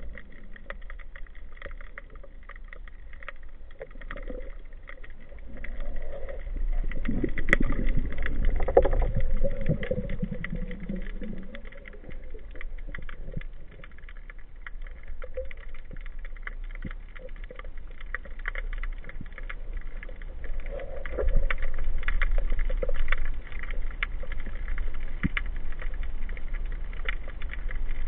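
Underwater sound picked up by a camera in a housing on a speargun: a constant crackle of small clicks, with a low rumble that swells twice, once from about six seconds in and again near the three-quarter mark.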